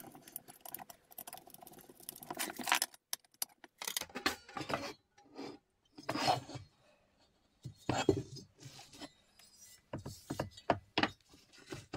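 Welded steel engine base frame being handled on a wooden board: irregular scrapes and knocks of metal on wood as it is slid, lifted and turned over.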